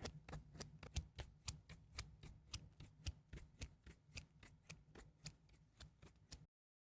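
Faint ASMR tapping: light, crisp clicks in an even run of about four a second, which stop suddenly near the end.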